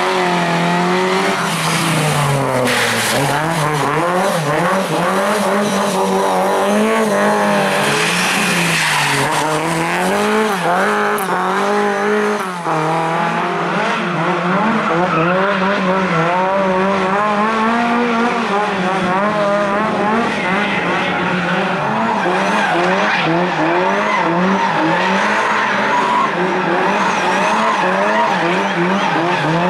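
Rally car engine revving up and down repeatedly, its pitch rising and falling over and over, with tyres squealing as the car slides.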